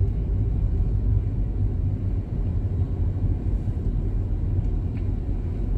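Car driving along a street, a steady low rumble of engine and road noise heard from inside the cabin.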